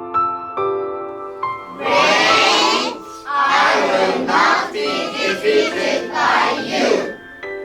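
Soft piano notes, then from about two seconds in a chorus of many voices together over the music.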